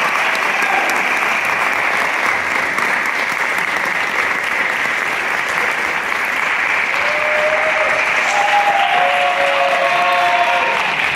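Auditorium audience applauding steadily, with one pair of hands clapping close by.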